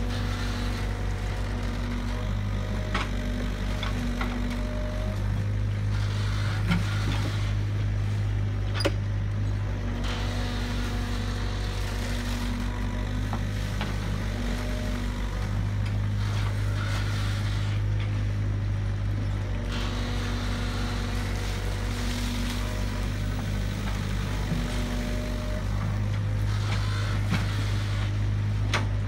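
Tracked excavator's diesel engine running steadily as the arm and bucket dig, its low drone swelling for a few seconds at a time as the hydraulics work. A few short sharp knocks come through.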